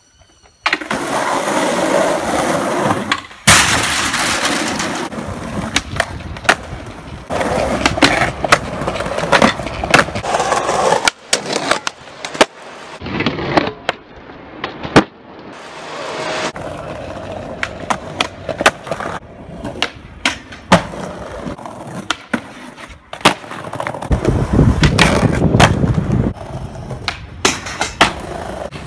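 Skateboard wheels rolling over pavement, broken by many sharp clacks as the board is popped and lands.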